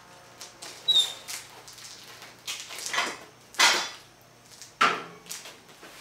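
A brief high squeak, then several sharp knocks and scuffs as a person gets off a welded mild-steel minibike frame and steps away on a concrete floor.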